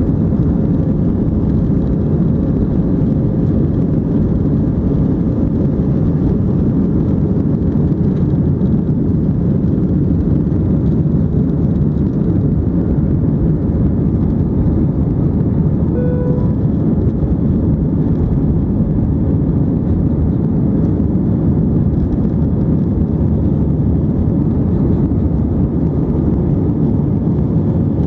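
Steady, loud engine and airflow noise of an Airbus A319 airliner, even throughout with no rise or fall. About sixteen seconds in, a short single beep sounds over it.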